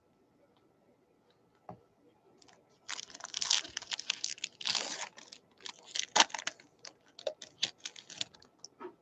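Baseball card pack wrapper being torn open and crinkled. It starts about three seconds in and goes on as a run of irregular crackling rustles with sharp little snaps.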